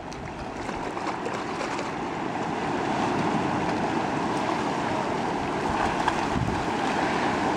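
Small sea waves washing against the rocks of a shoreline: a steady rush of surf that grows a little louder over the first few seconds, with some wind on the microphone.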